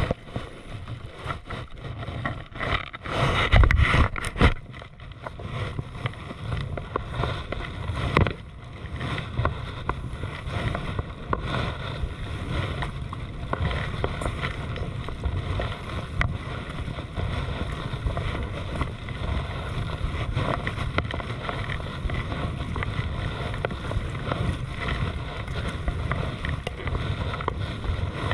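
Sea kayak being paddled over choppy water: paddle splashes and water lapping against the plastic hull. Wind rumbles on the microphone in gusts, loudest a few seconds in.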